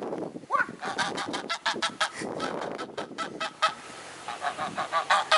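White domestic goose honking in a run of short calls, pausing briefly, then honking faster, several times a second, near the end.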